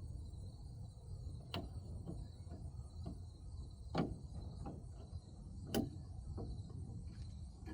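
Scattered clicks and knocks of hands working loose plastic trim and latch parts in a car trunk, with three sharper clicks about a second and a half, four and nearly six seconds in, over a steady low rumble.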